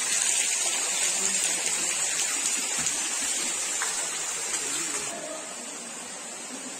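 Steady rush of flowing water, dropping somewhat quieter about five seconds in.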